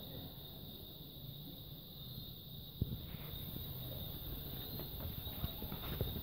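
Faint steady background of a high insect trill and a low hum, with a single click about three seconds in and camera handling noise toward the end; the cat makes no sound.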